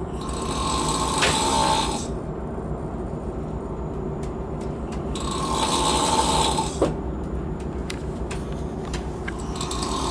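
A person snoring in slow rhythmic breaths: three snores of about two seconds each, roughly five seconds apart, the third starting near the end. They sound over a steady low rumble of the ship's engines, with scattered light clicks and rattles in between.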